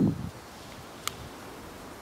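A low rustling that dies out in the first moment, then faint steady outdoor hiss with one sharp, high click about a second in.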